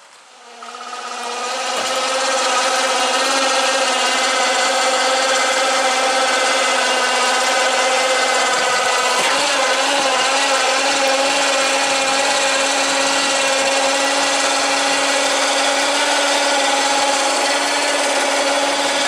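A steady mechanical hum at one fixed pitch, like a motor running, fading in over the first couple of seconds and then holding unchanged.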